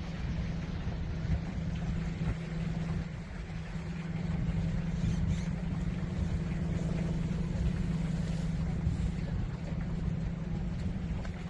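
Boat engine running steadily, a low even hum over a rumble.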